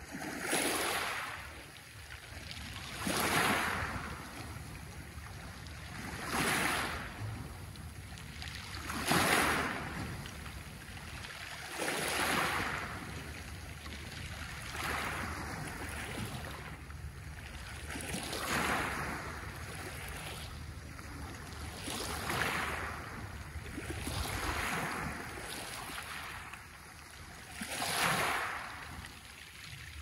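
Small sea waves washing up onto a pebble beach, a hissing surge about every three seconds, each swelling and fading as the water runs over the stones.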